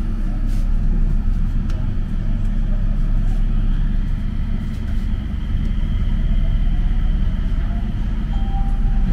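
Mitsubishi Crystal Mover light-rail car running along its guideway, heard from inside the car: a steady low rumble from the rubber tyres and drive, with a faint steady high whine through the middle.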